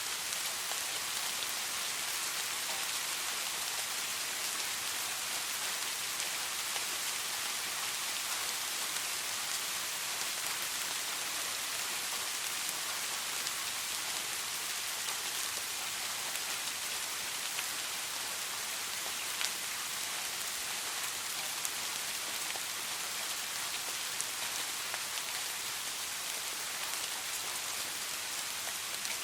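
Steady soft rain falling, an even hiss with scattered individual drops ticking.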